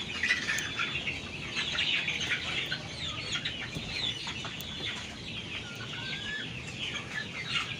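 A flock of young kampung (native Indonesian) chickens clucking and peeping, with many short calls overlapping continuously.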